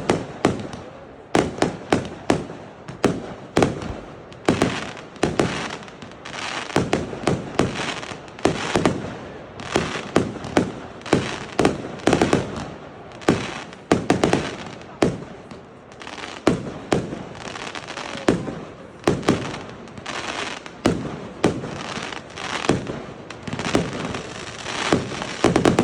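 Fireworks exploding: a continuous barrage of sharp bangs, often in quick clusters of two or three, with crackling and echoing between them.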